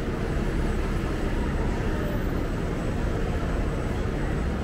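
Steady rumble of city street traffic, with a double-decker bus running close by in the road.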